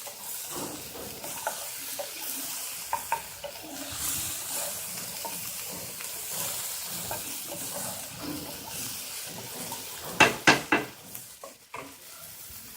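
Onions and chopped tomatoes sizzling in a pan while being stirred, the spoon scraping and clicking against the pan. A few sharp loud knocks of the spoon on the pan come near the end.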